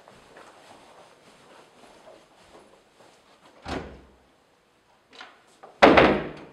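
A sudden thud about three and a half seconds in, a smaller knock, then a loud bang near the end that dies away over about half a second.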